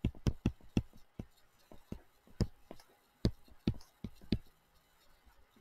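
Stylus tapping and clicking against a touchscreen while handwriting: an irregular run of short, light taps that stops near the end.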